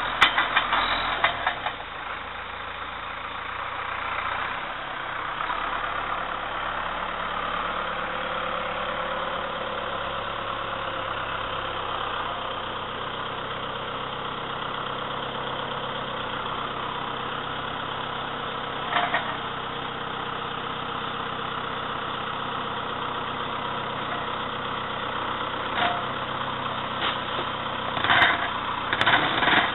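Farmer 9258TE tractor's diesel engine running steadily, with a few short knocks near the end.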